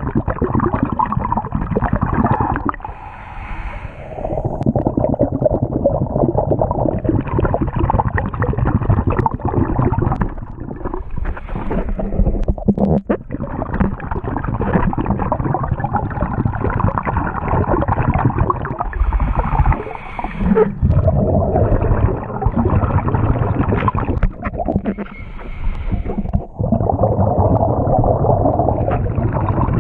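Water heard through an underwater camera: steady muffled gurgling and rushing, broken by short dips every few seconds.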